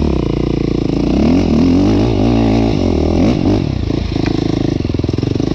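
KTM SX-F 450 single-cylinder four-stroke engine with an Akrapovič exhaust, pulling hard in first gear up a hill. The revs rise and fall in quick waves from about a second in, loudest in the middle, then settle to a steadier run near the end.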